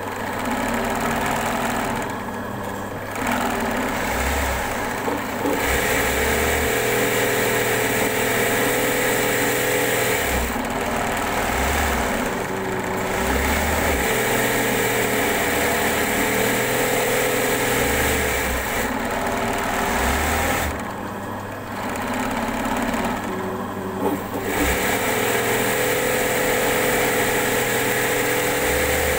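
Electric sewing machine running steadily as it stitches machine embroidery on hooped fabric, easing off briefly a few times.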